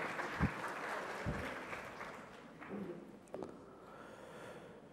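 Faint hall ambience that fades over the first two seconds, with a few soft knocks and small faint sounds.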